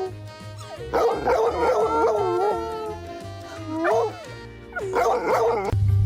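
A dog howling and yipping in three bouts, the first the longest, over background music.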